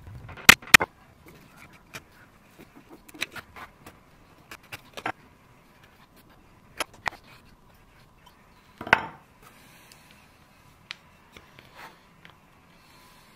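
Small metal hinge and hand tools handled against a wooden chest: scattered sharp clicks and taps, two loud ones about half a second in and a heavier knock about nine seconds in.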